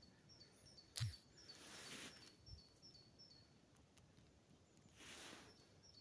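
Faint small songbird chirping: a quick run of short high calls, two or three a second, pausing briefly in the middle. A sharp click about a second in and two soft rustles of noise.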